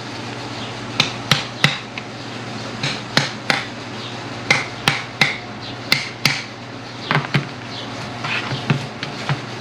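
Sharp knocks and taps of hand tools on the tractor's metal lift-cylinder parts, about fourteen strikes at irregular intervals, often in twos and threes, over a steady low hum.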